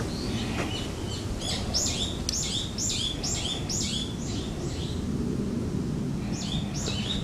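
Brown-eared bulbul calling: a quick run of about eight shrill calls, each falling in pitch, then two more near the end. A steady low rumble of background noise runs underneath.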